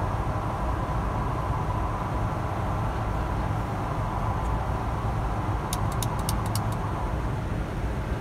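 Steady flight-deck noise of a Bombardier Global 6000 business jet descending on approach: a constant rumble of airflow and engines. About six seconds in there is a quick run of about seven sharp clicks.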